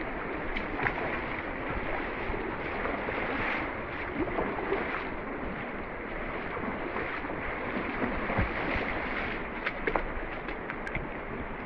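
Steady rush of a mountain creek running full with snowmelt, water pouring over rocks and into pools, with a few scattered light clicks.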